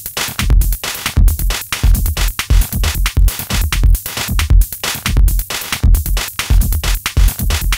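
Sampled electronic drum pattern of kick, snare and hi-hat hits played by two step sequences of different lengths in a Max/MSP gen~ patch. The pattern runs polymetrically, drifting out of phase and back in.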